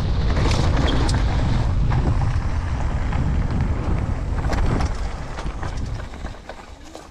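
Wind buffeting an action-camera microphone while a mountain bike rides fast downhill, with knocks and rattles from the bike and trail scattered through it. The rush dies down over the last two seconds.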